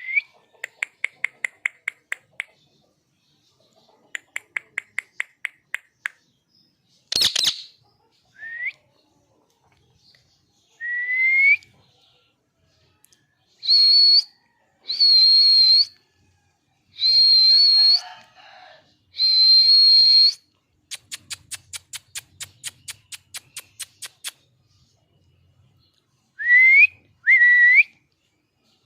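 Pet parrot calling: quick trains of rapid clicks, a sharp screech, short upward-sliding whistles and several held one-note whistles about a second each.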